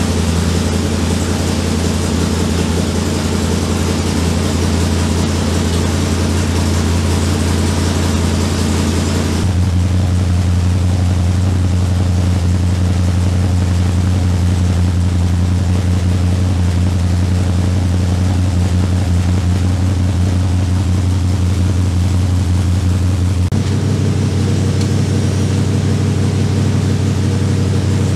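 Carbureted race engine of a dirt-track race car idling steadily and loudly, freshly installed and being run. Its tone shifts about a third of the way through and again near the end.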